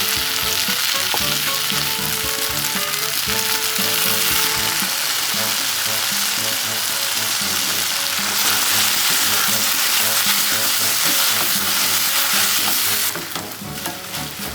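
Food frying loudly in a pan, a dense steady sizzle, being stirred; the sizzle drops off sharply near the end.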